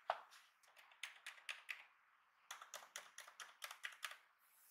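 Keys of an Asus TUF Gaming F15 laptop keyboard clicking as they are pressed, in two quick runs of about eight and a dozen clicks with a short pause between. A sharp knock right at the start is the loudest sound.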